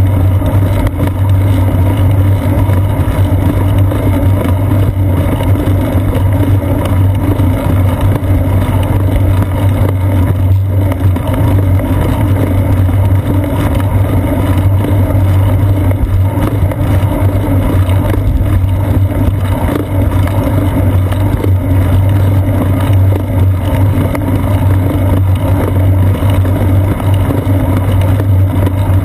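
Steady low drone of a bicycle riding along asphalt, with tyre rumble, frame vibration and wind picked up by a GoPro Hero 2 clamped to the seat post inside its sealed housing. The drone holds even throughout, with no passing traffic standing out.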